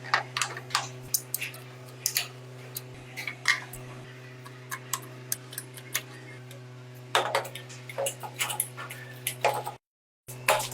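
Irregular metallic clicks and taps, as of hand tools and small metal parts being handled, over a steady low hum. The sound cuts out briefly near the end.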